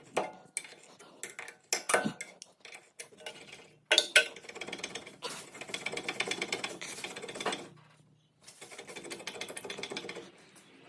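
Metal clinking and rattling of hand tools and brake parts during work on a car's rear brake caliper, with separate clinks at first, then a long run of rapid clicking through the middle and a shorter run near the end.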